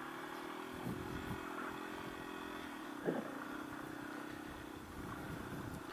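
Single-cylinder dual-sport motorcycle engine running steadily, with a couple of brief knocks.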